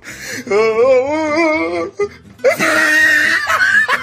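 A long wailing cry with a heavy, regular wobble in pitch lasting about a second and a half, then after a short break a brief shrill, noisy burst.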